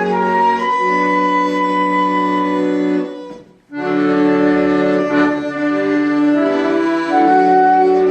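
Instrumental music of sustained, held chords in a reedy, organ-like timbre, with a brief break about three and a half seconds in before the chords resume.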